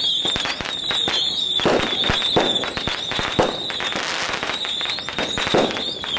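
A long string of firecrackers going off in rapid, irregular pops, with a few heavier bangs among them.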